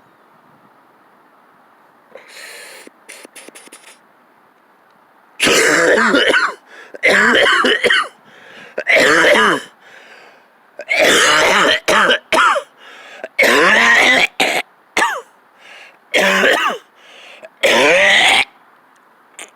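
A man in a coughing fit after inhaling a dab of cannabis concentrate: a few softer throat sounds, then about eight loud bouts of hard coughing and throat clearing, starting about five seconds in.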